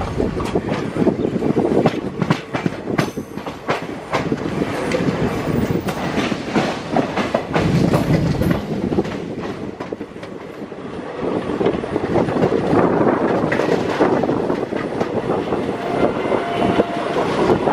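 Passenger train coaches running on the track: steady wheel rumble with irregular clickety-clack as the wheels cross rail joints and points. A brief thin tone sounds near the end.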